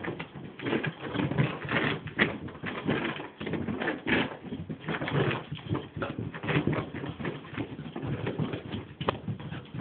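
A beagle scrambling and pouncing on carpet, its paws thumping and scuffing in quick, irregular bursts as it chases a laser dot.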